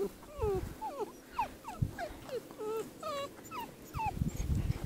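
Puppy whining: a rapid string of short, high whimpers, about three or four a second, many dropping in pitch, stopping shortly before the end.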